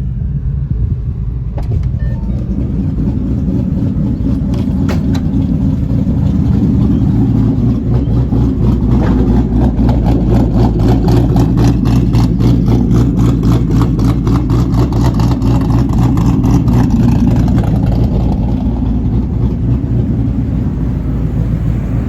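A 2011 Mustang GT's 5.0 Coyote V8 idling through a cat-deleted Corsa exhaust, with the choppy, pulsing lope of a 'ghost cam' idle tune. It grows louder over the first several seconds, then holds a steady rhythmic beat.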